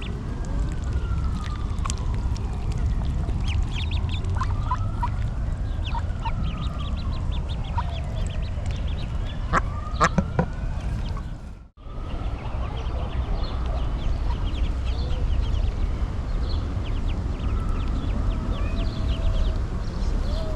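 Ducks and other waterfowl calling on a lake: many short calls over a steady low rumble. The sound cuts out for a moment about two-thirds of the way through.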